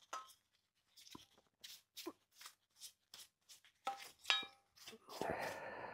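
Faint scattered taps and light clinks of parts and tools being handled, with one ringing metal clink about four seconds in and a rubbing sound near the end.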